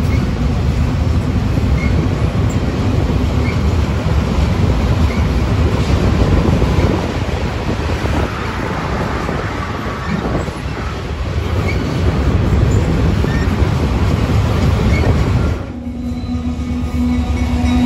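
Freight train of coal hopper cars rolling across a steel truss railroad bridge: a steady loud rumble with faint, regular clicks of wheels over the rail joints. Near the end the sound changes to a Union Pacific diesel locomotive approaching, with a steady low tone.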